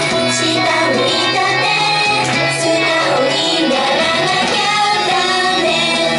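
Girls' idol group singing a pop song live into handheld microphones over loud backing music.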